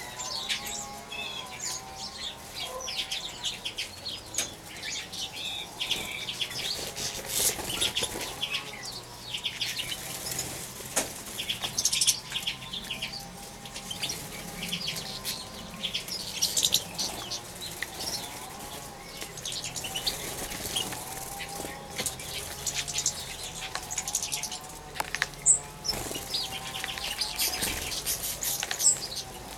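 Small finches, European goldfinches and serins, bathing in a shallow water trough: quick bursts of wing-fluttering and splashing come again and again throughout, with high chirps from the birds.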